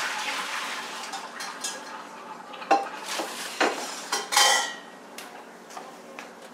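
Metal kitchen cookware and utensils clattering, with a hiss for the first couple of seconds, then sharp clinks and a short rattling clatter about four seconds in.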